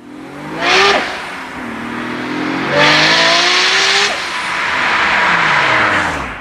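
Performance car engine revving hard, its note climbing in pitch, with a short burst of hiss about a second in and a louder, longer hiss from about three to four seconds in. The engine note then falls away toward the end.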